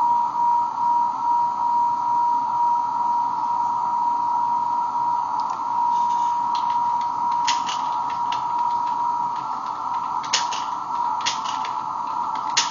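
Radio receiver audio from a meteor-scatter stream tuned to a carrier at 55.240 MHz: a steady whistle-like beat tone over a band of hiss. Bursts of computer keyboard clicks come about halfway through and again near the end.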